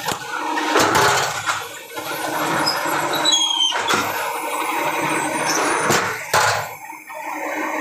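Concrete block making machine running, its hydraulic press working, with a steady hum. Sharp metal clanks come every second or few, and there are a few short high squeaks near the middle.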